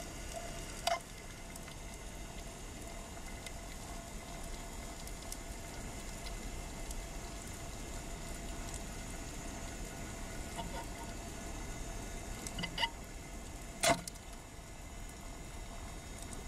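Underwater ambience: a steady hiss with a faint steady hum, broken by a few sharp clicks. The loudest is a single snap near the end, the speargun firing its shaft.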